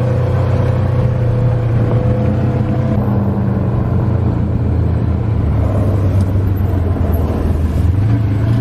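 Side-by-side UTV driving along a paved road, heard from inside its open cab: the engine and drivetrain run as a steady low hum. A higher whine rides over it for the first three seconds and then fades.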